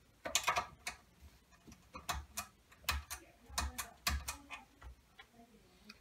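Small hard parts clicking and rattling as a hand picks through switches and components in a plastic parts organizer: a dozen or so sharp, irregular clicks.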